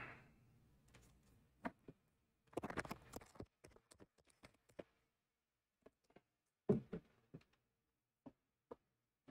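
Faint, scattered small taps and clicks of hardware being handled on a tabletop. A short cluster of scuffing noise comes about three seconds in, and another a little before seven seconds.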